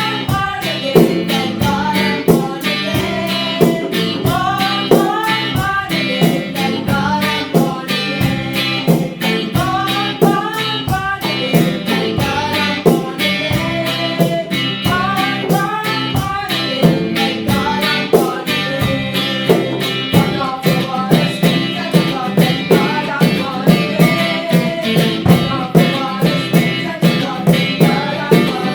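A song with singing over guitar and a steady beat.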